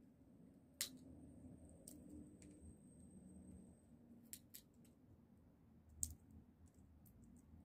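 Sunflower seed shells being bitten open and picked apart: quiet scattered clicks and cracks, two sharper ones about a second in and near six seconds in.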